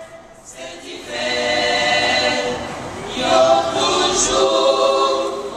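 Choral singing: several voices holding long notes together, coming in about a second in and growing louder about three seconds in.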